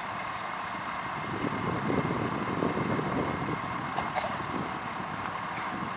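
Emergency vehicles idling steadily with a constant high hum over the top, and uneven low rumbling that comes and goes.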